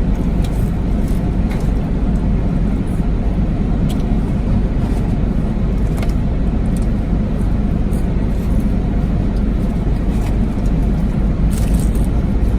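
Steady low rumble inside a car with the engine running, with scattered small clicks and rustles.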